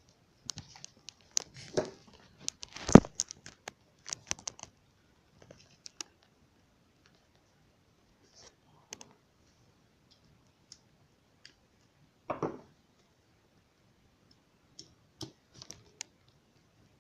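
Scattered clicks and knocks of plastic printer fuser-unit parts being handled as a long screw is fitted, the loudest knock about three seconds in.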